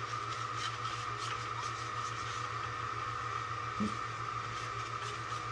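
Paper towel rubbing and wiping over a glass plate, faint against a steady background hum with a thin whine.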